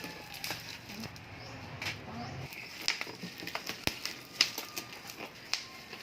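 Scattered sharp clicks and taps with light rustling from a parcel being handled, most of them in the second half.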